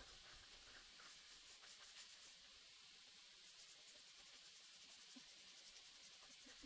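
Faint rhythmic rubbing of a workpiece against an abrasive, hand-sanding or honing strokes. The strokes are uneven for the first couple of seconds, then settle into a quick, even back-and-forth.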